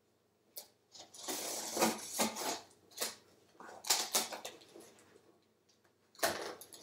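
Scissors slitting the packing tape on a cardboard shipping box, in several short scraping strokes, with the cardboard flaps rubbing and clicking as the box is opened.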